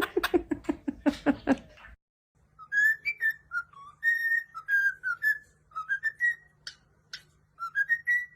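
A pet bird whistling a string of short, clear notes, some rising and some falling, with a few sharp clicks among them near the end. It is preceded by a quick run of pulsed voice-like sounds that stops abruptly about two seconds in.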